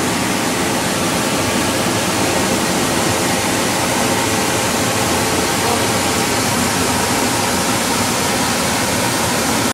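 Maple sap boiling hard in the stainless steel pans of a maple syrup evaporator: a steady, even hiss.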